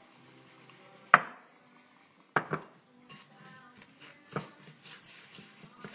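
Sharp knocks and clinks of a white ceramic bowl being handled on a wooden cutting board, with olive oil poured into it from a bottle. There are four distinct knocks, the loudest about a second in, with softer clatter between them.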